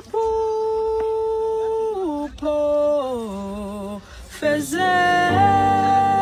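A solo voice singing long held notes that step down in pitch, joined about four and a half seconds in by fuller, layered vocal music.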